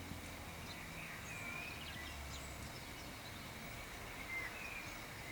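Faint birds chirping in the background: short, scattered chirps and brief whistled glides over a low, steady room hum.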